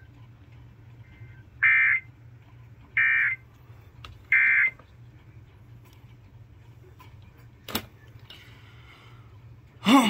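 Emergency Alert System end-of-message data bursts played through a TV speaker: three short buzzy electronic bursts about a second and a quarter apart, signalling the end of the severe thunderstorm warning. A single sharp click comes near the end.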